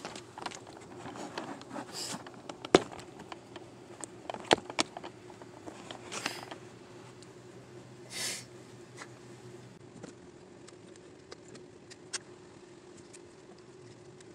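Scattered small clicks, taps and brief rustles of hands handling wiring under a car's dashboard, the sharpest taps about three and four and a half seconds in, over a faint steady hum.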